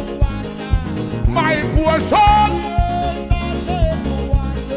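Live band music played on a drum kit, with a steady kick-drum beat about twice a second, cymbals, and a sung melody over keyboard.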